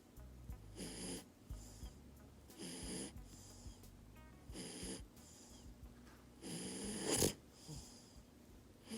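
French bulldog snoring in rhythmic breaths, about one every two seconds, four in all. The last snore, near the end, is the longest and loudest.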